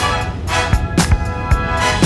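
Background music with a steady beat of about two drum hits a second under sustained chords.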